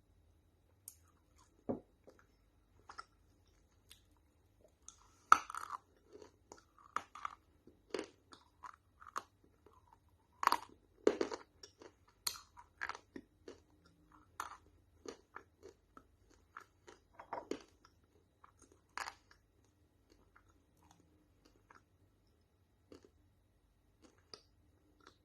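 Dry, crunchy clay being crunched in a series of irregular, sharp crackling crunches. Some are loud and some faint, packed most closely together around the middle and thinning out near the end.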